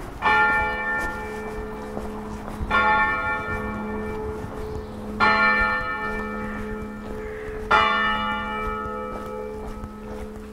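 A single church bell tolling, struck four times about two and a half seconds apart, each strike ringing out with a long hum that carries on between strikes.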